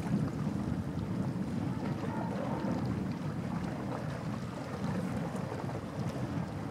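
Steady wind rumbling and buffeting on the microphone over open, choppy water.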